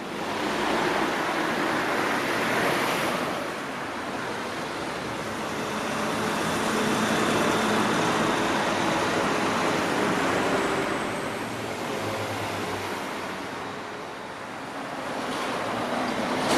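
Road traffic: cars passing on the street, their tyre and engine noise swelling and fading several times.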